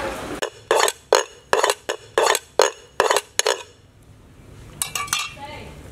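Steel cleaver chopping on a round wooden chopping block: about ten sharp strikes at a steady pace of two or three a second, then a pause and a few lighter knocks near the end.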